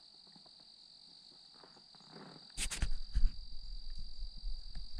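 Faint steady high-pitched insect buzz at dawn by a lake. A little past halfway, a louder low rumble comes in with a few sharp knocks.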